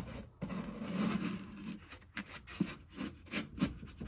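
Irregular rubbing and scuffing as a foam boom mat speaker baffle is pushed into the speaker opening of a truck door, with a few light knocks along the way.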